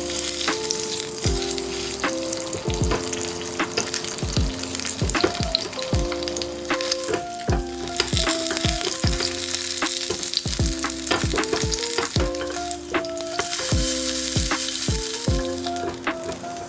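Food frying in oil in a pan: a continuous sizzle that swells louder for a couple of seconds near the end. Background music with plucked notes plays over it.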